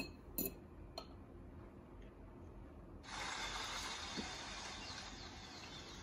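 A few light clinks of a metal utensil against a plate in the first second. About three seconds in, a faint rainforest ambience of insects and birds comes in and runs steadily.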